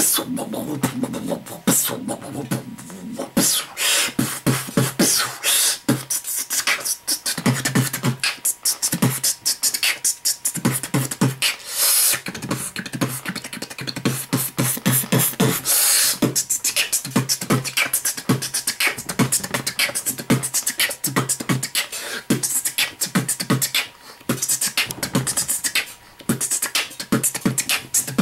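Dubstep-style beatboxing into a handheld microphone: fast percussive mouth clicks and kicks with snare-like hisses over a recurring low bass tone. It breaks off briefly twice near the end.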